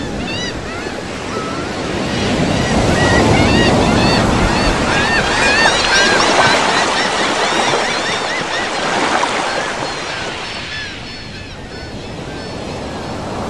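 Sea surf washing on a beach. Many short repeated bird calls ring over it through the first half and then fade out.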